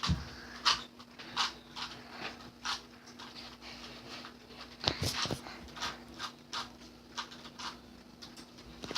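Rubik's cube being turned fast during a timed solve: a string of short, irregular plastic clicks, one to three a second.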